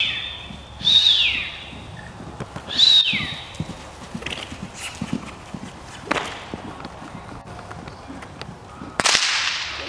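Horse cantering loose on arena sand, its hoofbeats soft, irregular thuds. Over them come two loud, high, whistle-like calls that fall in pitch, about one and three seconds in, then sharp cracks about six and nine seconds in, the second one loud.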